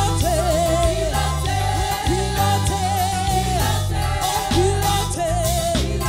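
Live Haitian Creole gospel song: a woman's lead vocal, held notes with wide vibrato, over band accompaniment with a heavy repeating bass line, and a second lower voice joining in.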